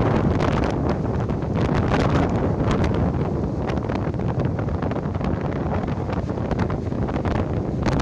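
Strong gale wind buffeting a phone's microphone: a loud, steady low rumble broken by constant gusty crackles, with storm surf breaking against a seawall underneath it.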